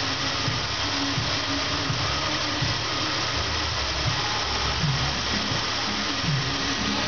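2004 Jeep Grand Cherokee engine running steadily on test, a constant mechanical hum and whir.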